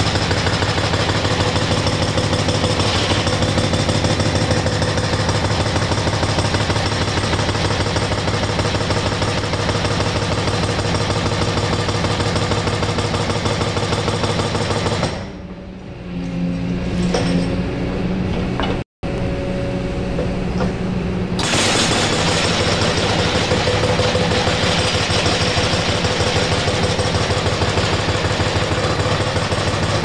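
Excavator-mounted hydraulic breaker hammering rapidly on the floor. About halfway through, it stops for roughly six seconds while the excavator's engine keeps running with a steady hum, then starts hammering again. There is a split-second cut-out of all sound during the pause.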